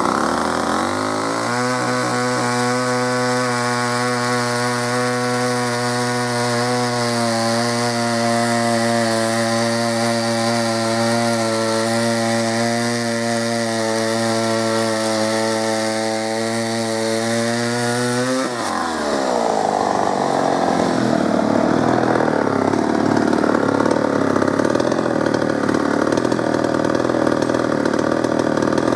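1969 Skil 1644 69cc two-stroke chainsaw revving up, then held at a steady high pitch at full throttle while cutting through a log. About eighteen seconds in the throttle is released and the note falls away to a rougher, uneven idle.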